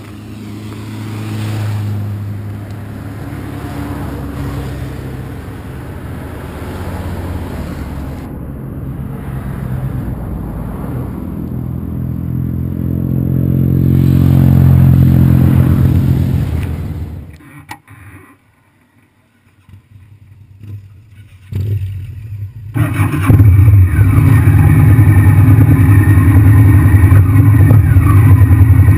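A motorcycle passes on the road, growing louder to a peak about halfway through and then fading away. After a few seconds of near-quiet, the Honda VTR1000's V-twin engine starts right at the camera about three-quarters of the way in and idles loudly and steadily.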